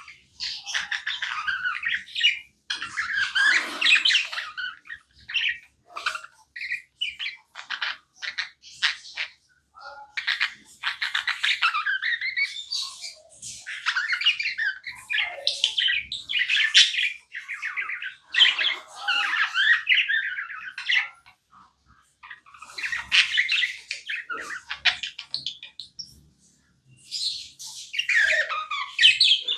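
Pet budgerigars chirping and chattering in busy, warbling bursts of a few seconds each, separated by brief pauses.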